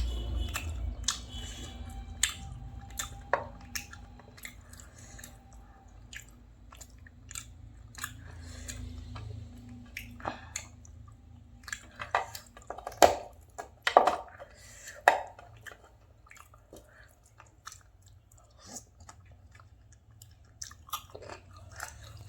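Close-miked chewing and mouth sounds of a person eating a rice and curry meal: irregular wet clicks and smacks, with a louder cluster of bites about two-thirds of the way through.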